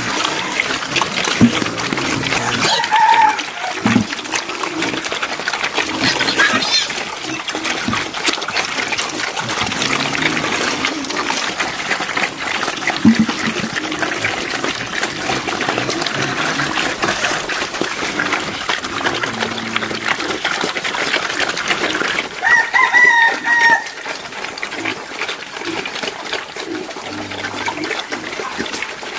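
Chickens clucking, and a rooster crowing once, loudly, late on, over the steady noise of pigs munching chopped cabbage greens at a concrete trough.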